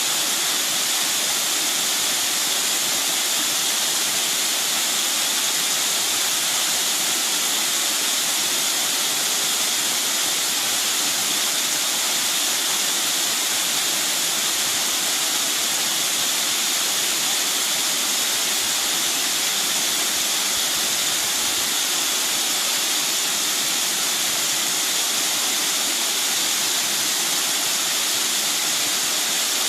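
Mountain stream water rushing steadily, a constant even hiss with no let-up.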